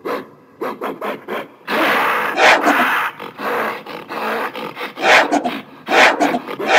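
Gorilla vocalising: rough, breathy grunts and growls in irregular bursts, the longest lasting about a second, from about two seconds in.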